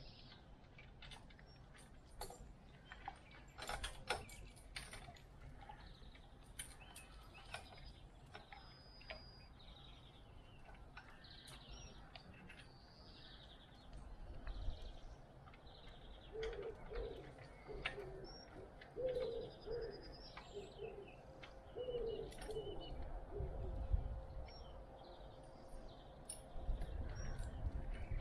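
Birds chirping throughout, with a low, repeated cooing call in the second half, like a pigeon's. Scattered clicks and knocks of metal being handled come through now and then.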